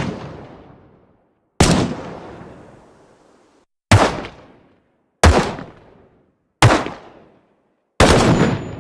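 AK-47 rifle firing single shots, five of them spaced one to two seconds apart, each a sharp crack that trails off over about a second.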